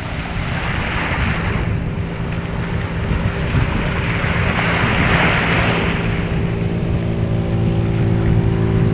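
Sea waves surging and washing in twice, over a motor engine running steadily in the background.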